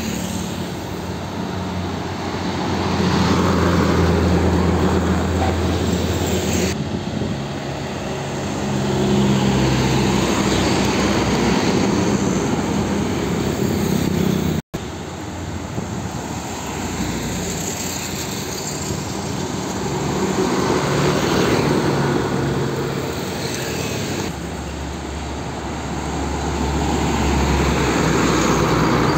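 Heavy diesel container trucks driving past on a city road over steady traffic noise. Each engine's low drone swells and fades as it goes by, several times over, with a brief dropout about halfway.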